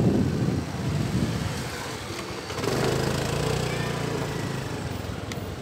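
Honda Activa 4G scooter's small single-cylinder engine running as it is ridden, with wind buffeting the microphone during the first second. About two and a half seconds in, the engine note steadies and grows a little louder.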